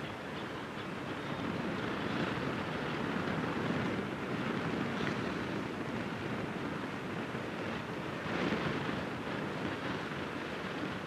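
Steady outdoor noise with wind gusting against the microphone, rising and falling in a few soft surges.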